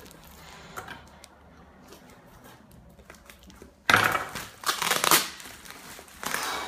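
Plastic shipping bag crinkling as it is handled and turned over: faint rustling at first, then loud crinkling about four seconds in and again briefly near the end.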